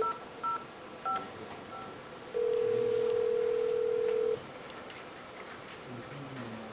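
Four short touch-tone (DTMF) keypad beeps as a number is dialled on a desk telephone, followed by a steady ringback tone for about two seconds, one ring of the call being put through on the Asterisk phone system.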